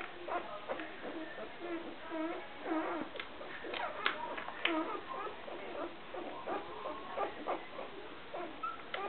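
Newborn golden retriever puppy squeaking and whimpering over and over while its nails are trimmed, with a few short sharp clicks about four seconds in.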